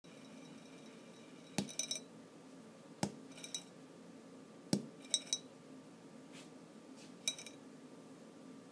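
A glass jar knocked and clinking lightly: four sharp knocks at uneven intervals, each followed by a brief rattle of high, glassy clinks.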